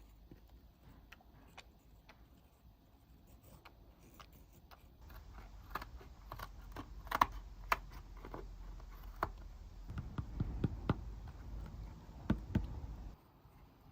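Irregular clicks, taps and light knocks of hand tools and small mower parts being handled and set down, sparse at first and then busier, over a low steady hum that cuts off shortly before the end.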